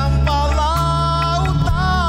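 A male singer holds a long sung note over a live band with a steady bass line; the note wavers with vibrato near the end.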